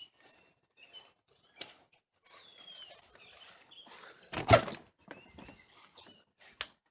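Clicks and knocks of a camper door being opened and someone climbing in, with one loud thump about halfway through. Birds chirp faintly in the background.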